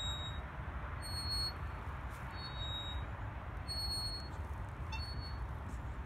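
Steady wind rumble on the microphone, with a short high squeak about every second and a half from the playground swing's chain hangers as the bucket swing goes back and forth.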